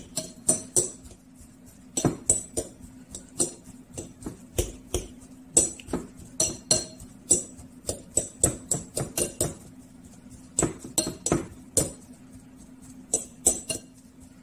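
A detached metal hand-mixer beater, worked by hand as a potato masher, knocking and clinking against the bowl as cooked potatoes are mashed: irregular sharp clicks, a few a second, with short pauses.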